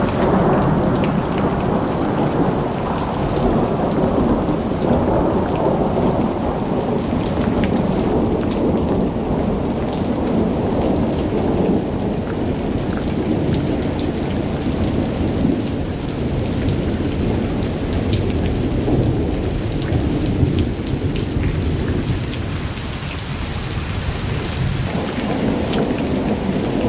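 Heavy rain pouring down steadily, a dense hiss with a deep rumble underneath and scattered sharp drop ticks.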